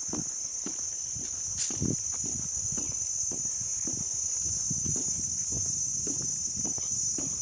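A steady high-pitched drone of forest insects, with footsteps thudding softly along the trail at a walking pace, about two a second.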